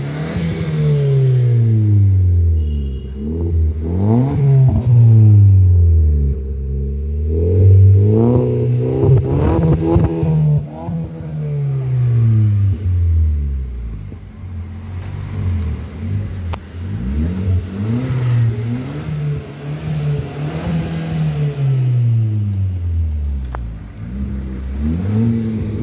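Maruti Ciaz engine revved repeatedly through an aftermarket HKS Hyper Power exhaust, the revs climbing and dropping back about six times, some blips held for a few seconds.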